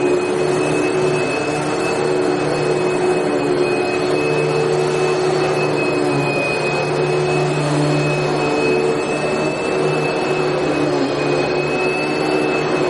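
Vacuum cleaner running steadily: a constant airflow rush with a high motor whine and a low hum, no change in speed.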